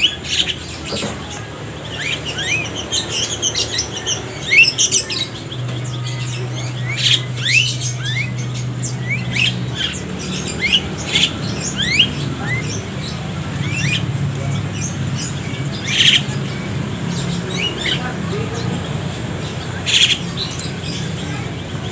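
A flock of Javan mynas caged together, calling at once: a steady stream of short rising chirps broken by harsh squawks, two of them standing out near the end. A low steady hum runs underneath.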